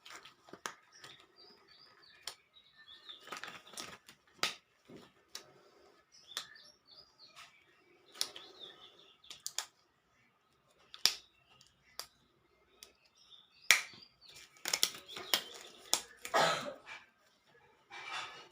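Small birds chirping in the background, with scattered sharp clicks and knocks throughout and a cluster of louder knocks near the end.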